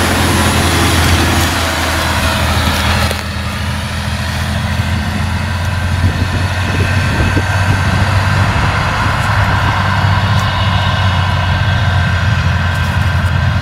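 Diesel engine of a Mercedes-Benz Actros truck running steadily as it pulls a grain semi-trailer across a stubble field, a low even drone. About three seconds in, the hissy upper part of the sound drops away abruptly.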